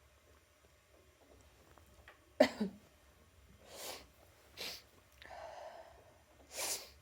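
A person sneezes once, sharply and loudly, about two and a half seconds in, followed by several short breathy exhales and inhales.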